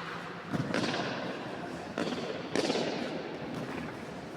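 Three sharp bangs, each trailing off in an echo, over steady background noise.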